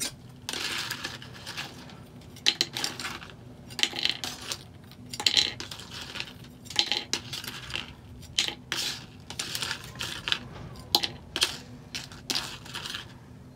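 Plastic spoon scraping goldfish crackers across a paper plate and tipping them into a plastic cup: an irregular run of short scrapes and light clatters.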